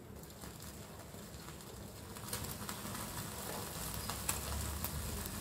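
Chicken pieces grilling on a wire rack directly over a gas burner flame: a soft sizzle with a few sharp crackles, getting louder about two seconds in.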